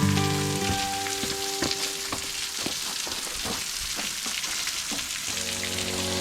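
Soft background music of slow held notes over a steady crackling hiss with scattered ticks, like rain or dripping water.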